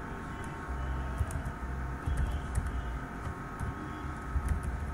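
Computer keyboard typing: scattered light key clicks over a low background rumble.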